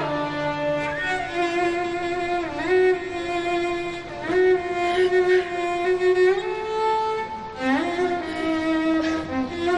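Background score: a slow violin melody of long held notes with slides between them.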